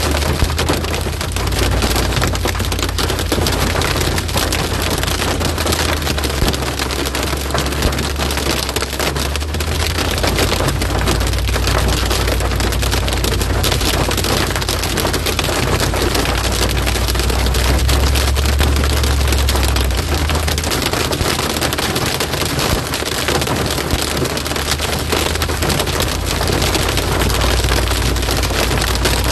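Heavy rain pelting a vehicle's roof and windshield, heard from inside the cabin: a loud, dense patter of sharp drops over a steady low rumble.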